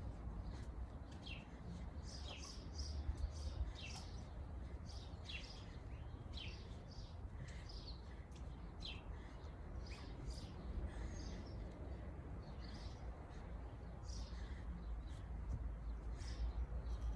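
Several birds chirping and calling in quick, short notes again and again, over a steady low rumble.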